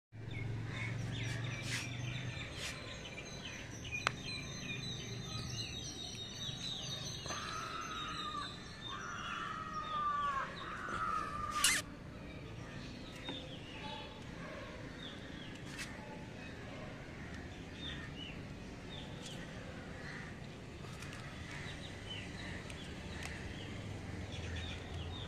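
Birds chirping and calling over a steady outdoor background hum, with a run of louder, arching calls in the middle. Two sharp clicks, the louder one about halfway through.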